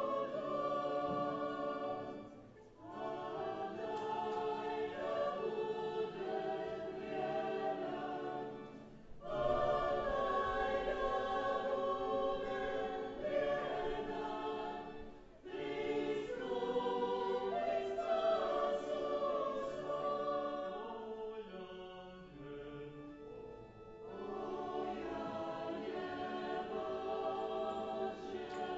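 Choir singing an offertory hymn during the preparation of the gifts at Mass, in phrases separated by short breaths or pauses.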